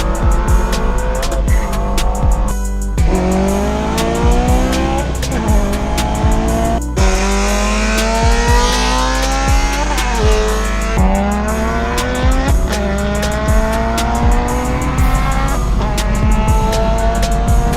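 Background music with a steady heavy beat, over a car engine accelerating hard through the gears: its pitch climbs and drops back at each shift, several times.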